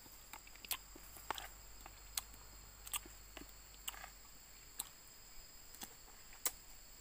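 Metal spoon clicking and scraping against a plastic plate and a person chewing, in sharp separate clicks about once a second, over a faint steady high drone of insects.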